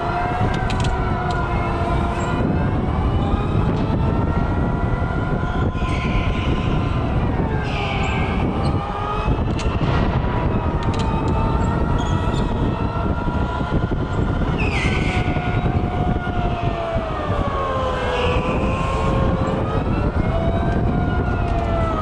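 Electric go-kart motors whining, several pitches overlapping and gliding up and down with speed through the corners. Short tyre squeals come every few seconds over a steady low rumble.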